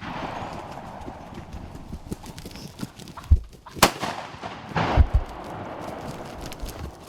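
A shotgun shot cracks sharply about four seconds in, with a second loud blast about a second later, both fired at turkeys at close range. A steady rustling noise runs under them.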